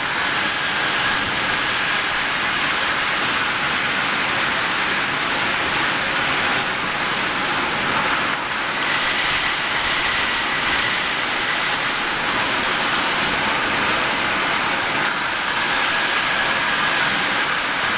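Steady machinery noise of an angle-steel section rolling mill's conveyors and roller tables running, with a faint high whine that comes and goes.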